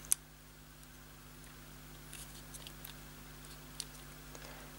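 Small handling clicks and taps as plastic clock parts and ribbon cable are worked by hand, with one sharper click just after the start and faint scattered ticks later on, over a faint steady hum.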